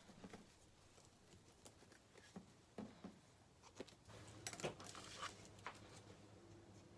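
Faint, scattered clicks and rustles of a bamboo sushi rolling mat being handled and unrolled, the slats tapping together, with a short run of sharper clicks past the middle.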